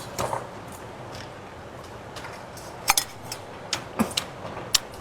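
Scattered light clicks and clinks of chopsticks and a bowl while eating, about seven short taps, most of them in the second half.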